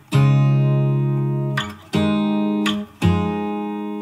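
Background music: three guitar chords, each struck and left to ring and fade, about a second apart.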